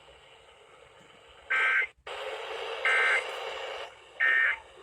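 Emergency Alert System SAME header: three short bursts of shrill two-pitch digital data tones, about a second and a half apart, over radio static hiss. It is the coded header that opens a new warning broadcast.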